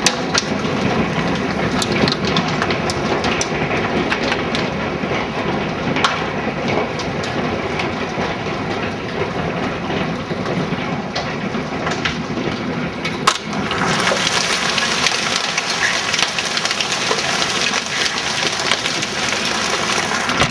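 A heavy hailstorm with stones about golf-ball size: a dense, steady hiss of falling hail and rain, broken by many sharp cracks of single stones striking. One loud crack comes past the middle, and the hiss grows brighter and heavier after it.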